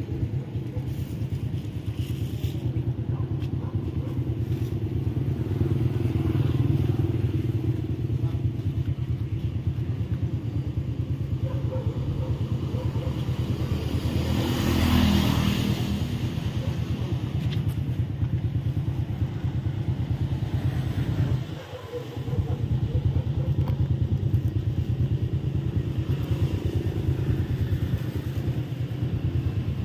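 A steady, low motor-vehicle engine rumble. It swells louder about halfway through, then dips briefly a little later.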